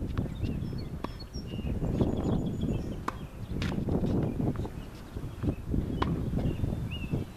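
Tennis balls struck by rackets and bouncing on a hard court during a rally, sharp pops every second or two, over a steady low rumbling noise.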